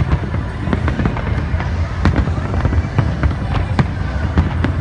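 Aerial fireworks bursting in rapid, irregular bangs, several a second, over a continuous low rumble of further explosions.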